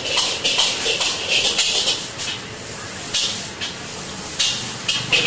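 Noodles being stir-fried and tossed in a hot iron wok with a steel ladle: rhythmic bursts of sizzling hiss with the ladle scraping the pan, about two to three strokes a second, easing off briefly around the middle.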